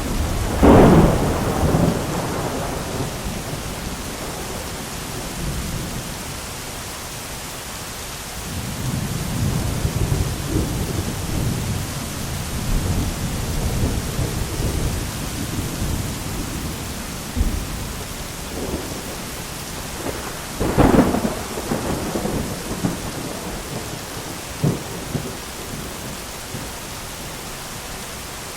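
Thunderstorm: steady heavy rain with thunder. A loud crack of thunder about a second in, a long low rumble through the middle, and another sharp crack followed by rolling thunder about two thirds of the way through.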